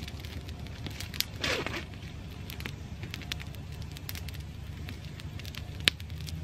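Wood campfire of sticks burning with scattered crackles and pops: a sharp pop about a second in and a louder one near the end, with a brief rushing hiss between them. A low steady rumble runs underneath.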